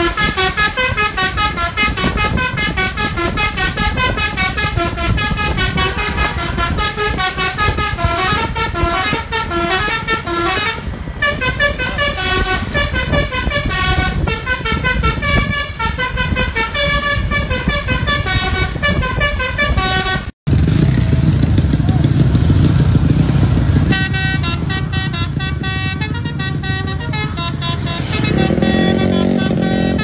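Telolet basuri multi-tone bus horn playing a fast melody of many short pitched notes. After a sudden break a little past the middle, a heavy low engine rumble takes over, with more horn tunes sounding over it.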